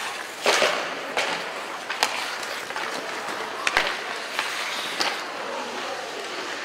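Ice hockey skate blades scraping and carving on the ice, with about five sharp clacks and scrapes of sticks and puck, the first a longer scrape near the start.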